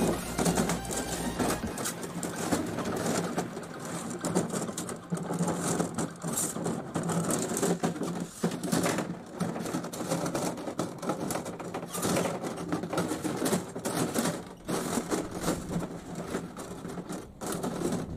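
Soft copper tubing being handled and shaped into square coil loops: irregular clicking, tapping and rubbing of the tube against itself and the plastic tabletop, over a steady low hum.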